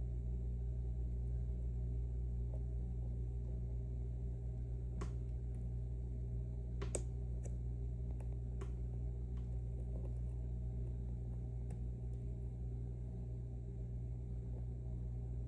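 A few faint sharp clicks of a lock pick working the pins of an M&C Matrix lock, over a steady low electrical hum.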